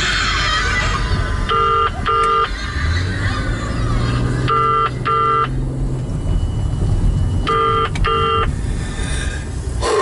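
Car cabin noise while driving: a steady low engine and road rumble. Over it, a pair of short electronic beeps repeats about every three seconds.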